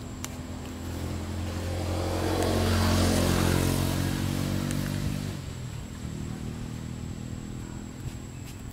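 A motor vehicle engine passing by, growing louder to a peak about three seconds in and fading away by about five and a half seconds.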